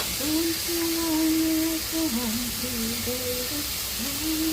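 Someone humming a slow tune in long held notes that step between a few pitches, over a steady hiss.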